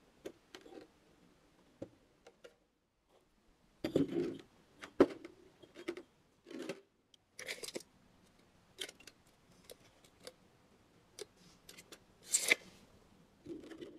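Heat-resistant firebricks being shifted and set down on a board, giving scattered knocks and scrapes, with a sharp knock about five seconds in and a longer scrape near the end, along with the handling of a tape measure.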